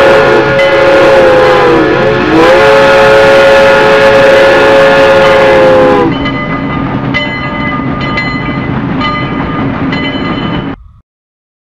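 Train horn sounding a held chord of several tones, its pitch sagging and coming back about two seconds in, cutting off about six seconds in. A quieter train running noise follows, with a faint tick about once a second, and stops abruptly near the end.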